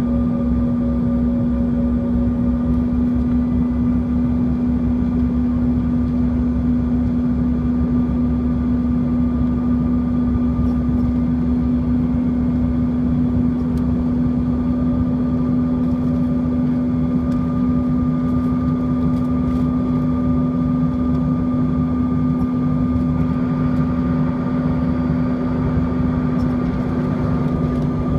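Steady cabin noise inside a Bombardier CRJ-200 in flight: the hum of its rear-mounted General Electric CF34 turbofans, with a strong low tone, over a rushing airflow hiss. The hiss grows slightly near the end.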